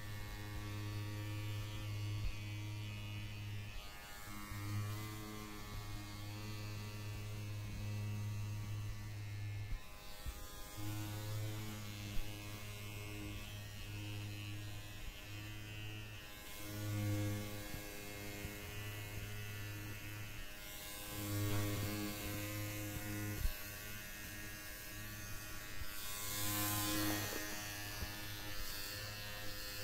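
Electric hair clippers running with a steady low buzz that dips briefly every few seconds. A brief hiss comes in near the end.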